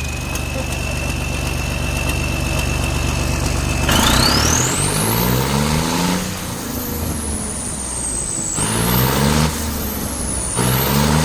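Diesel engine with a newly fitted turbocharger, idling with a steady high whine, then revved three times. Each rev sends the turbo whistle sweeping sharply upward, and it glides back down as the engine falls off.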